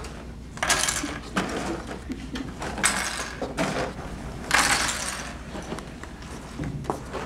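Small dry food pieces shaken out of a plastic jar and clattering onto a tabletop, in three loud rattling pours about two seconds apart.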